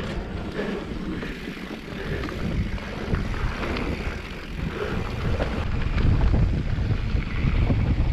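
Mountain bike rolling downhill on a dry dirt trail: tyres running over loose dirt and the bike rattling over bumps, with wind buffeting the camera microphone. The rumble grows louder about six seconds in.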